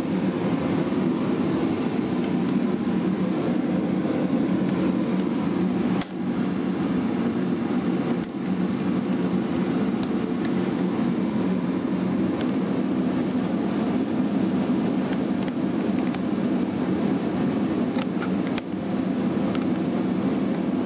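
A steady low mechanical drone, like a fan or blower running, broken briefly about six, eight and eighteen seconds in.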